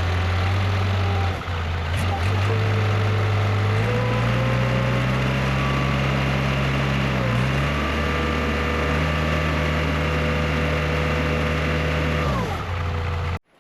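CAT 236 skid steer's diesel engine running during a test run after a fan motor replacement, revved up in two steps about four and eight seconds in, with a higher whine rising along with the engine speed. The engine note falls away near the end.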